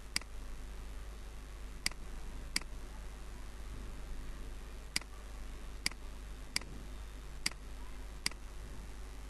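Computer mouse button clicking: about eight sharp, single clicks at uneven intervals, over a steady low background hum.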